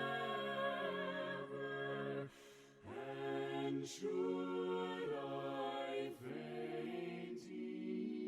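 Soft a cappella choir singing a slow hymn in several parts, with a brief break between phrases about two seconds in.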